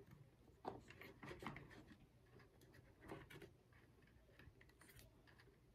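Near silence with faint, scattered small clicks and rustles of fingers twisting thin wires together inside an opened plastic toy casing.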